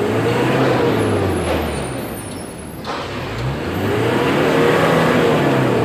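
Mitsubishi L300 diesel engine being free-revved while it blows black smoke. One rev falls back to idle in the first two seconds. A second rises from about three and a half seconds and drops back near the end.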